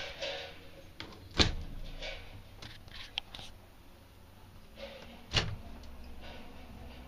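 Wooden wardrobe cabinet doors in a travel trailer being opened, with a sharp knock from the doors about a second and a half in and another about five seconds in, and light clicks and rustling between.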